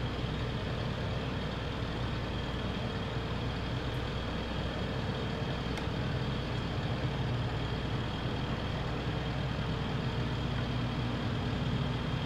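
A catamaran's inboard engines running at a steady speed, pulling against an anchor snagged on an underwater obstruction.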